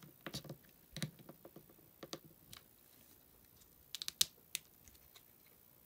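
Small plastic clicks and taps as a toy figure is handled and slid onto its clear plastic display stand, with a quick cluster of sharper clicks about four seconds in.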